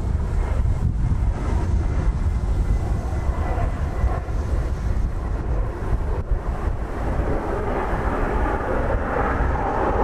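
Strong wind buffeting the microphone with a steady low rumble, and a jet aircraft's engine noise that grows louder from about eight seconds in.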